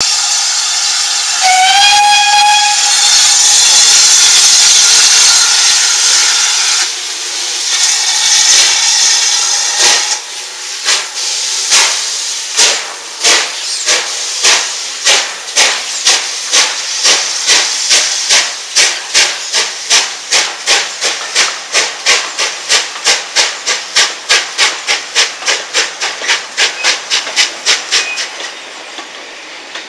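GWR steam locomotive starting away: a short whistle, a loud hiss of steam, then exhaust chuffs that speed up from about one a second to about three a second and fade near the end as the train pulls away.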